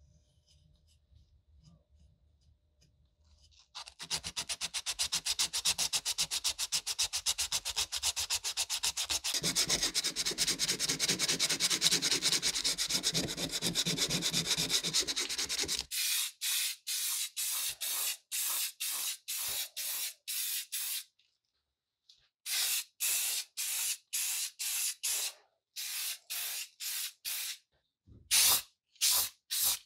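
Hand sanding of body filler on a steel lantern housing with sandpaper: a steady, rapid rasping that starts about four seconds in and runs for about twelve seconds. From about sixteen seconds there is a run of short hisses from an aerosol spray can, about two a second, broken by brief pauses, as paint goes onto the housing.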